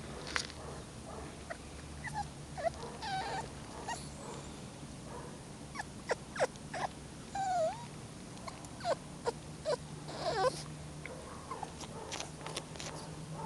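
Jack Russell terrier puppies whimpering and squeaking: many short, high calls, some sliding up or down in pitch, scattered irregularly, over a steady low hum.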